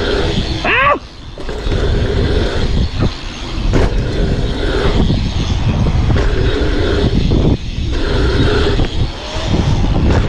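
Wind buffeting the microphone of a handlebar-mounted camera as a BMX bike is ridden over dirt jumps, with the tyres rolling on packed dirt. There is a brief squeak about a second in.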